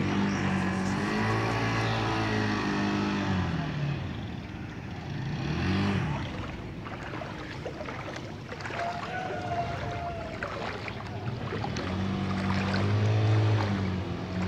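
Motor vehicle engines revving up and easing off several times, rising and falling in pitch, with a held steady stretch about a second in and again near the end.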